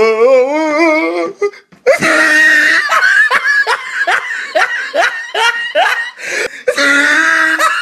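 A person laughing hard: a warbling, wavering laugh at first, then after a short break a long run of loud laughing bursts, about two a second.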